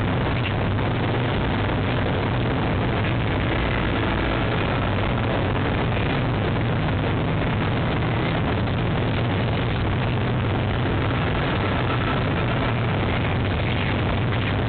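Steady rushing noise of city traffic and wind with a low hum, picked up by a high-rise nest-box webcam's microphone.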